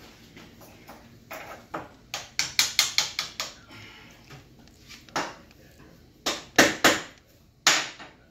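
Sharp clicks and knocks of tools and metal parts being handled while a gas cooktop is fitted into a countertop: a quick run of about half a dozen knocks, then a few louder ones near the end.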